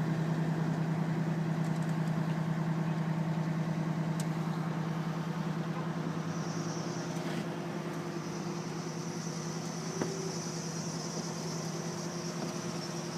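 A 102-foot aerial ladder truck's engine and hydraulics run as the ladder raises: a steady hum that slowly fades as the bucket climbs. A high thin whine joins about six seconds in, and there is a single click near ten seconds.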